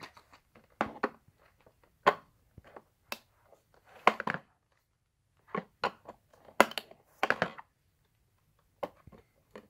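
Irregular sharp clicks and knocks of a flat-blade screwdriver prying batteries out of a plastic toy's battery compartment, with the batteries and screwdriver rattling against the plastic casing.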